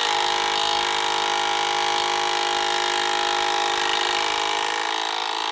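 Cordless impact wrench hammering without a break on the eccentric shaft nut at the front of a Mazda rotary engine.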